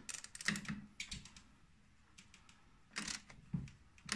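Light mechanical clicks and taps from tool work on a snowmobile's track adjuster: a few in the first second, a pause, then a few more about three seconds in.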